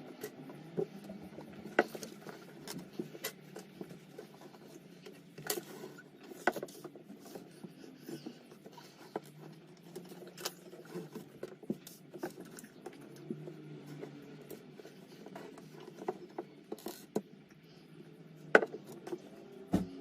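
Irregular clicks and taps of plastic LEGO Technic pieces being handled and pressed together, a few sharper than the rest, over a faint low hum.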